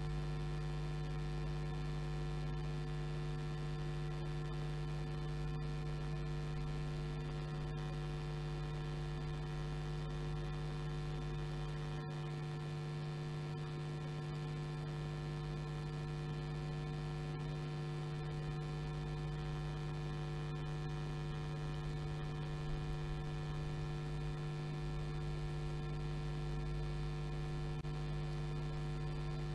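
Steady electrical mains hum: a low, unchanging buzz with many evenly spaced overtones, carried on the broadcast audio line in place of any track sound.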